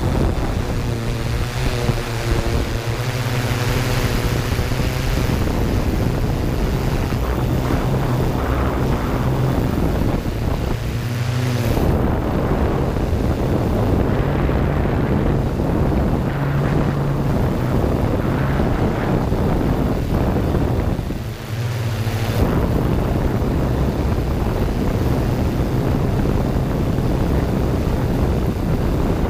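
Yuneec Q500 quadcopter's rotors humming steadily in flight as heard from on board, with wind rushing over the microphone. The hum's pitch wavers a little as the drone manoeuvres, and it dips briefly twice.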